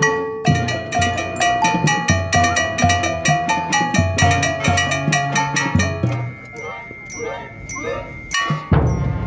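Marching band music heard from close beside a marimba: rapid, evenly struck marimba notes over drums, thinning to a softer passage about six seconds in, then a loud full-ensemble hit near the end.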